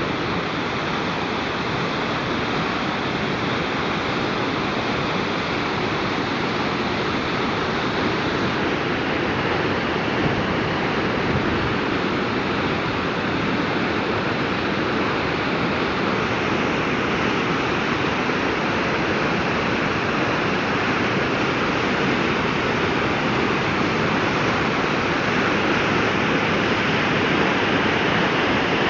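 The Caozo waterfall on the Garganta Bohonal mountain stream pouring steadily: a constant rush of falling water that grows slightly louder toward the end.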